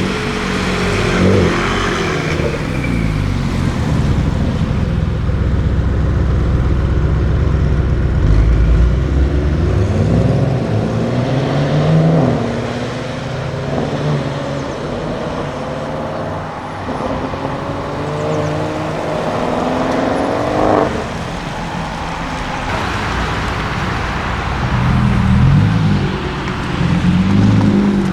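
Audi RS7 Sportback C8's twin-turbo V8, breathing through an Akrapovic cat-back exhaust, pulling hard under acceleration. Its pitch climbs in several long rising sweeps through the gears, drops back sharply about two-thirds of the way through, then rises again near the end.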